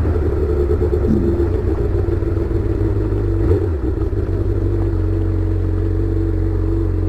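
Honda Hornet's inline-four engine running steadily through an aftermarket sport exhaust tip, with a brief dip and change in pitch a little past three seconds in.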